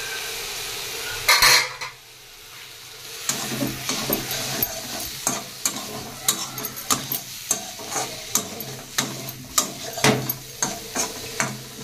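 Steel spatula stirring Malabar spinach stems and potatoes frying in a metal kadai: a steady sizzle with frequent clinks and scrapes of the spatula against the pan. A brief loud clatter comes about a second and a half in, and the stirring starts about three seconds in.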